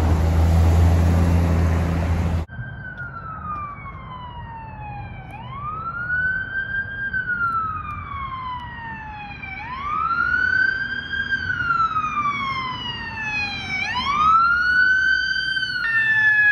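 A box ambulance drives past with loud engine and road noise. After a sudden cut, an emergency vehicle's electronic siren sounds a slow wail: each cycle rises quickly, then falls slowly, about every four seconds. It grows louder as the vehicle approaches and switches to a steadier tone near the end.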